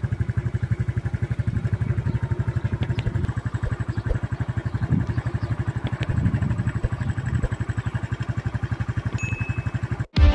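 A vehicle engine idles close by with a fast, even pulse of about a dozen beats a second. It cuts off suddenly near the end.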